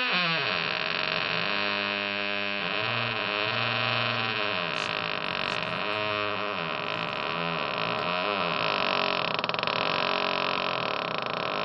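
Wooden door creaking on its hinges as it is slowly moved: one long, unbroken creak that slides up and down in pitch several times.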